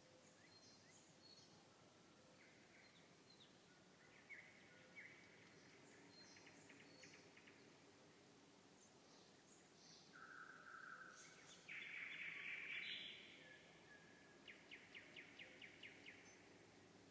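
Nightingale singing faintly in separate varied phrases: short pure whistles, clicking runs, a louder harsh phrase about two-thirds of the way in, and a run of about nine quick repeated notes near the end.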